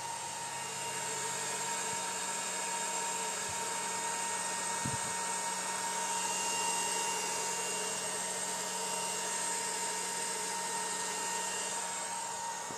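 A solar water-pump controller (a variable-frequency drive) running in its metal cabinet while it powers a 3 HP pump. It makes a steady electrical whine and hum, with several high tones held at an even level.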